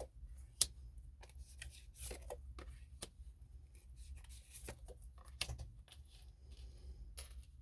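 Tarot cards being handled and shuffled: faint soft rustles and light taps, with a sharper tap about half a second in and another about five and a half seconds in.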